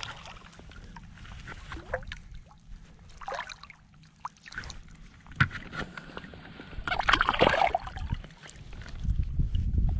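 Shallow saltwater sloshing and splashing close to the microphone around a wading angler and a hooked speckled trout, with a sharp splash about five seconds in and a louder splashing burst around seven seconds in.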